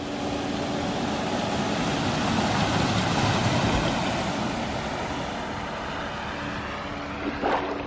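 A van driving past through deep floodwater: engine rumble under a rushing swish of water pushed aside by the wheels, swelling as it passes close and easing off, its wake washing up at the water's edge.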